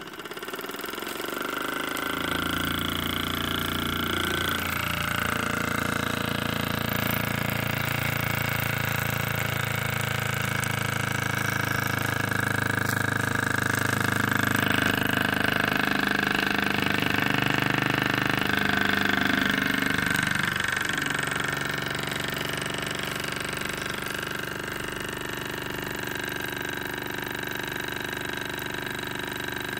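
Jensen 76 toy steam engine picking up speed as its steam valve is opened, then running fast and steadily. Its pitch steps slightly a few seconds in and again about twenty seconds in as the speed changes.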